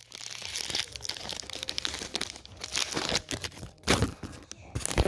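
Wrapper of a Garbage Pail Kids trading card pack crinkling and tearing as it is pulled open by hand, with a couple of louder crackles near the end.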